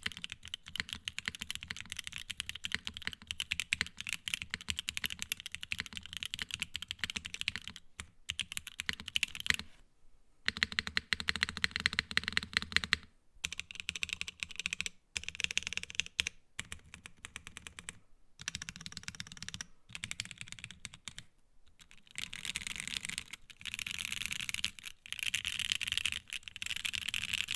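Fast typing on a Void65 65% mechanical keyboard: Gateron X linear switches in a top-mounted PC plate with no foam, under ABS keycaps, with Kailh BCP-stabilized long keys. The keystrokes run in quick streams, broken by a few short pauses.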